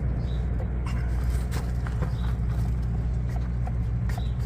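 Steady low machine hum, with scattered light clicks and knocks of metal being handled.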